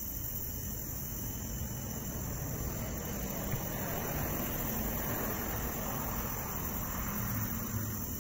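A steady night-time chorus of crickets chirping.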